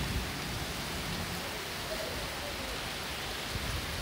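Heavy rain pouring steadily, an even hiss with no breaks.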